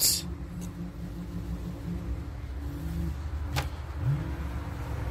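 A steady low mechanical hum, engine-like, with a couple of brief rising pitch changes, and a sharp click at the start and another about three and a half seconds in.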